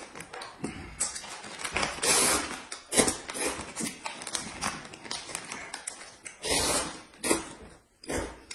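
Noodles being slurped and chewed at close range, in several long, noisy slurps, mixed with the crinkle and tear of a plastic snack wrapper.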